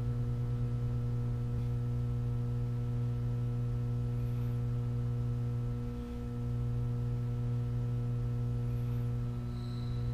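Steady low electrical hum with fainter higher overtones stacked above it, dipping briefly about six seconds in.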